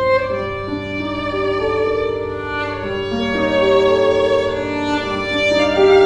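Background music on bowed strings: slow, sustained notes held several at a time, moving to new notes every second or so.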